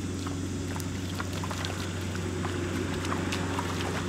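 Scattered small splashes and squelches of hands and bare feet in shallow, muddy rice-paddy water, over a steady low motor hum.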